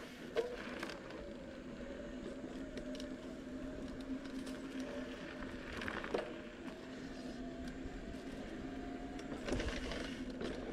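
Bicycle riding along a sandy dirt trail: tyre and frame noise over the ground, with a steady hum underneath and a few sharp knocks as the bike jolts over bumps.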